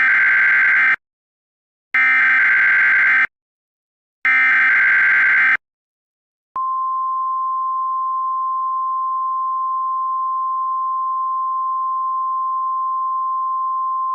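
Emergency Alert System SAME header: three loud, screeching digital data bursts, each a little over a second long. About six and a half seconds in, a steady one-pitch 1050 Hz NOAA Weather Radio alert tone starts. Together they are the header and attention signal that open a new emergency alert message.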